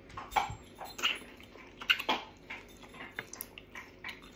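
Close-up eating sounds: mouth smacks and chewing while meat is pulled off a bone by hand, a handful of short, separate smacks spread over a few seconds.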